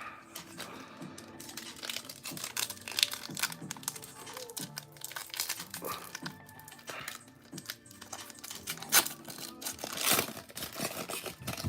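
Foil booster pack wrapper crinkling and being torn open, a run of sharp crackles with louder tears about 3 s in and near 9 to 10 s.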